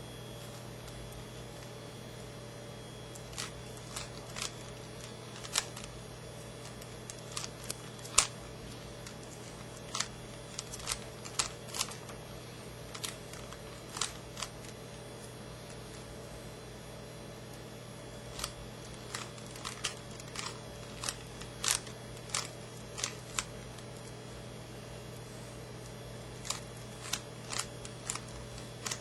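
An old, worn plastic Rubik's cube being turned by hand: sharp irregular clicks as its layers snap round, some in quick runs of several turns, with pauses of a few seconds between runs.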